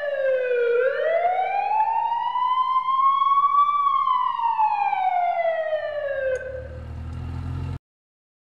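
Fire truck siren wailing. Its pitch falls, climbs slowly over about three seconds, then falls again. A low rumble joins it near the end, and the sound cuts off abruptly.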